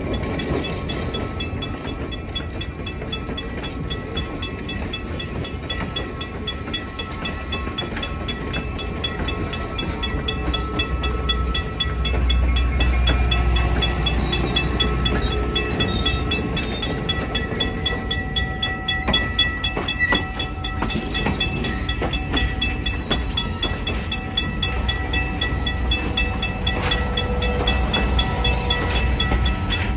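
Passenger railcars rolling slowly past close by: wheels clicking over rail joints with thin, steady squeals from the wheels on the rails. A deeper rumble swells about twelve seconds in.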